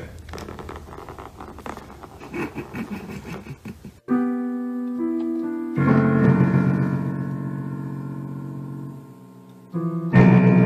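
Slow keyboard music: a few held chords, each struck and left to ring, coming in with an abrupt cut about four seconds in after an indistinct stretch of room sound.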